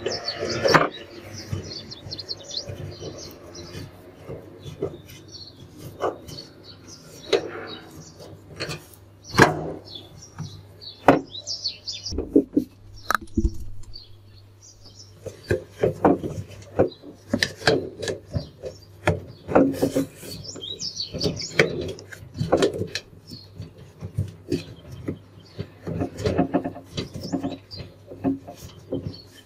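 Hands working at the door opening of a front-loading washing machine: irregular knocks, clicks and rubbing as parts are handled and fitted.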